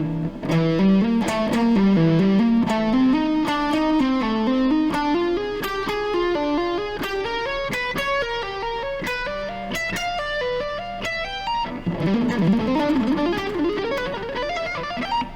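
Electric guitar playing a fast, chaotic-sounding lick built from repeating symmetrical shapes, hammer-ons, pull-offs and picked notes in quick runs that climb up the neck and come back down, with a faster rising run near the end.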